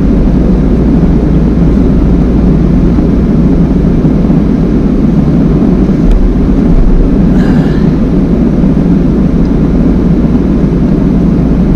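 Van engine and tyre road noise heard from inside the cabin while driving: a loud, steady low rumble.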